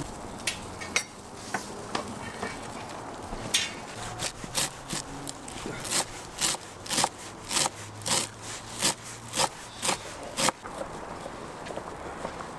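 Kitchen knife chopping fresh dill and parsley on a wooden cutting board: a few scattered chops at first, then a steady run of about two chops a second that stops near the end.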